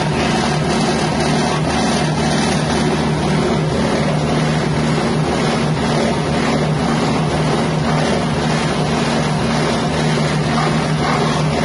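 Spice-grinding hammer mill running steadily on its 6.5 hp engine, one even mechanical drone throughout.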